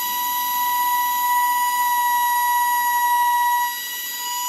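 Makita electric palm sander running against a plastic kayak hull: a steady high motor whine over the rasp of the sanding pad, a little quieter near the end. The keel is being scuffed so an adhesive keel guard strip will stick better.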